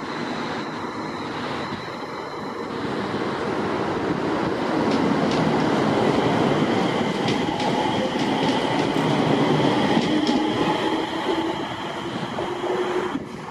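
JR East 701 series electric multiple unit pulling out of the station and passing close by. Its wheels rumble and click over the rail joints, loudest about halfway through as the cars go past, and a motor whine climbs in pitch as the train speeds up and draws away.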